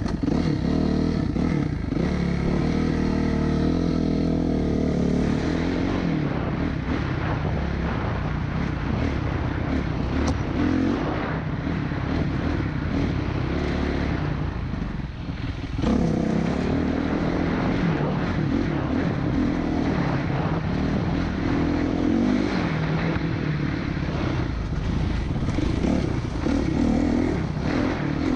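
Dirt bike engine running under changing throttle on a trail ride, its pitch rising and falling. It eases off about halfway through and opens up again sharply.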